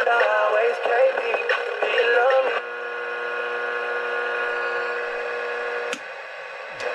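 Sony WA-55's radio playing a broadcast voice through its small speaker, then about two and a half seconds in giving way to a steady electrical buzz from interference by a nearby light. A sharp click about six seconds in cuts the buzz lower, and another click comes near the end.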